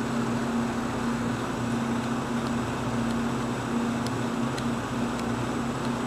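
Steady mechanical hum with a constant low tone, and a few faint ticks.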